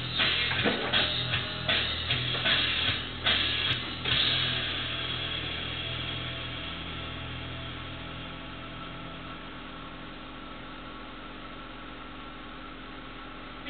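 Background music: guitar and drums playing a rhythmic strummed beat, then a final chord held and slowly fading from about four seconds in, with new music starting near the end.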